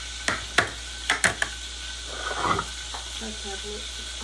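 Steady sizzle of fish frying in oil, with five sharp clinks of kitchenware in quick succession in the first second and a half, then a brief scrape about two seconds in.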